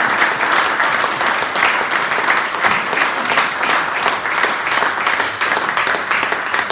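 Audience applauding: many people clapping at once, a dense, even patter of claps.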